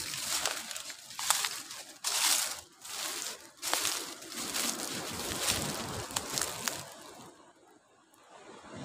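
Crunching and rustling of dry leaves and brush, underfoot and against the body, as someone pushes along an overgrown footpath in uneven bursts. It stops about seven seconds in.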